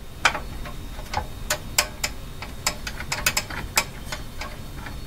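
Irregular sharp clicks and ticks from an old record changer's mechanism as its seized turntable is worked by hand, a dozen or so over a low steady hum. The turntable seems locked and will not turn.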